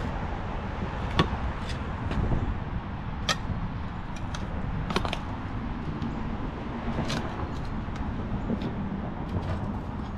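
Shovel blade cutting a bed edge into soil and turf, with a few sharp clicks and scrapes of the steel blade, over a steady low rumble.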